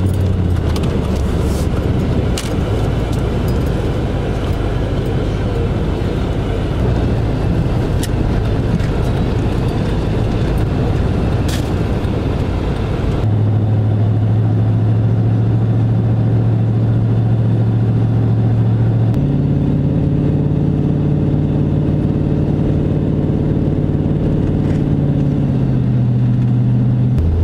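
Vehicle engine and road noise heard from inside the cab while driving on snow-covered roads: a steady low drone that shifts to a new steady pitch about 13 seconds in and again about 19 seconds in.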